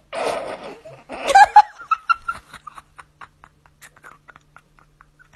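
A person laughing: a breathy burst, a louder outburst about a second in, then short giggles that trail off in quick, fading pulses.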